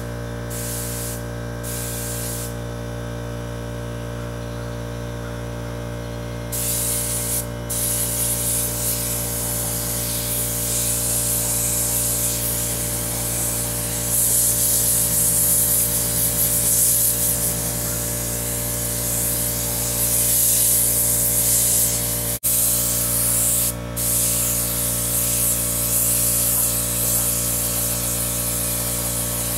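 Napa 70-180 compressed-air detail spray gun hissing as it sprays paint, the hiss starting and stopping with each pass of the trigger, over a steady low mechanical hum.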